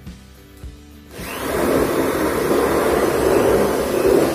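Corded electric drill boring a hole through a thin light-gauge steel frame channel for a pop rivet, starting about a second in, running steadily for about three seconds and stopping near the end.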